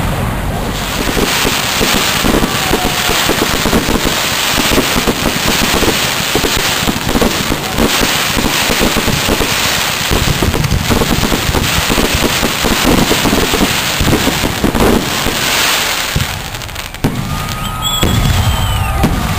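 Aerial fireworks bursting in a rapid, continuous barrage of bangs and crackling, easing off about three seconds before the end, when a few thin whistles are heard.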